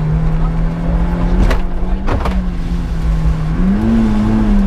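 Opel Corsa C GSi rally car's four-cylinder engine held at high revs on a special stage, with the pitch steady and then rising and easing again near the end. Two sharp knocks cut through about a second and a half and two seconds in, over a heavy low rumble of car and road.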